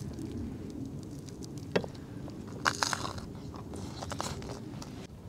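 People eating at a camp table: bites and chewing with a few crunches, and several sharp clicks of cutlery on the pan and plates. A steady low rumble runs underneath.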